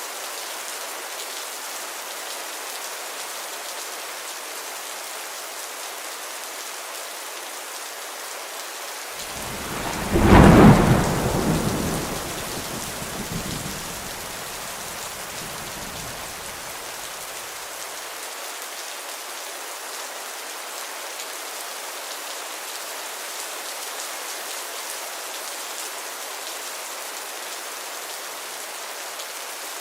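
Heavy rain falling steadily, with one thunderclap about a third of the way in that rumbles and fades away over several seconds.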